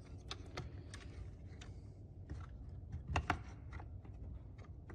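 Light clicks and taps of small plastic parts and wiring being handled and pressed into place in a Makita DHS680 cordless circular saw's plastic housing, with a louder pair of clicks about three seconds in.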